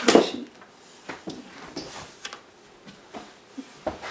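Handling noises from objects on a tabletop: a sharp knock at the start, then scattered light clicks and taps.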